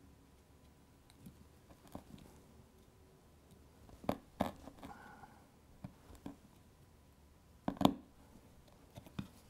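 A sharp chisel cutting into a thick leather guitar strap pressed on a wooden board: a handful of short, separate cuts and taps with quiet between them, the loudest near the end. The chisel is paring material from the inside of the strap so a strap-lock nut and washer can seat.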